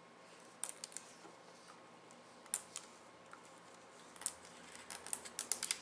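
Light scattered clicks and taps of fingers working on a Dell XPS 17 laptop's plastic casing and display cable area at the hinge. The clicks are sparse at first and come quicker near the end.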